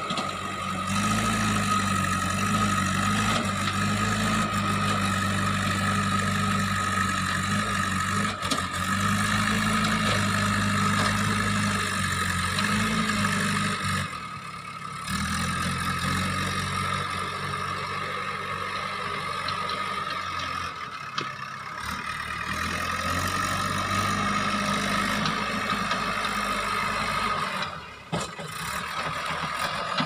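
JCB 3DX backhoe loader's diesel engine running under working load, its speed rising and falling several times as the loader arm and bucket are worked, with a steady high whine over it. The sound drops briefly a few times.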